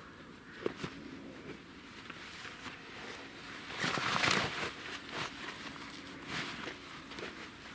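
Rustling and footsteps in grass, with a sharp click about a second in and a louder rustle about four seconds in.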